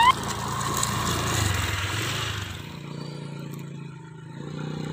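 Motor scooter's small engine revving as it struggles through deep mud, fading away after about two and a half seconds. A quieter steady low engine hum carries on after it.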